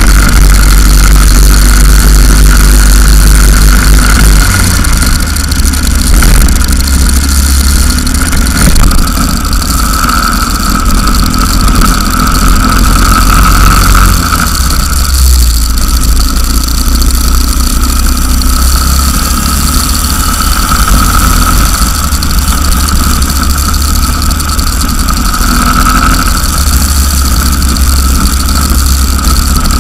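Go-kart engine running at speed, heard loud and close from a camera mounted on the kart, with small swells in level as the driver goes through the corners and along the straights.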